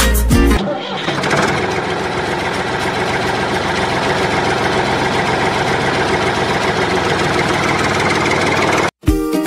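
Tractor engine sound effect running steadily, coming in as music stops about half a second in and cutting off suddenly near the end.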